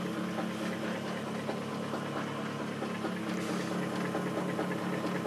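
Steady machine hum with an even whirring hiss, from the bench-run three-phase generator that is charging the batteries.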